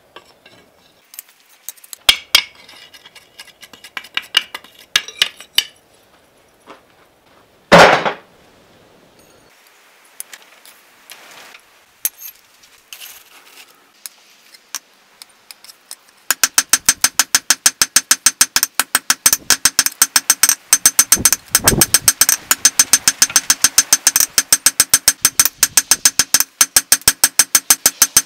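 Hammer blows on hot steel on an anvil: scattered clinks and a loud knock about eight seconds in, then from about halfway a fast, even run of blows with the anvil ringing.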